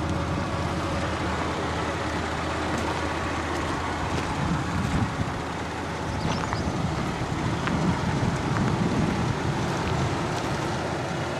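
2002 GMC Sonoma ZR2's 4.3-litre V6 idling steadily, heard from beside the truck.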